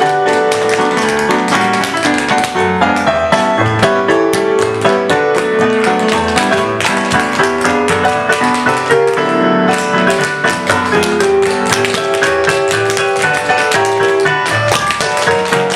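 Piano-led show music playing steadily, with quick sharp taps over it that sound like tap-dance steps.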